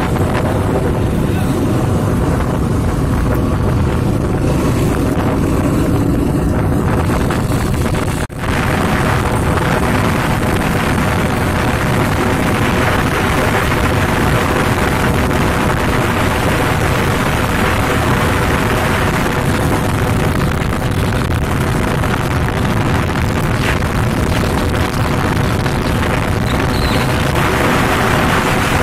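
Wind rushing over the microphone and a motorcycle engine running while riding at road speed: a loud, steady rush with a brief drop about eight seconds in.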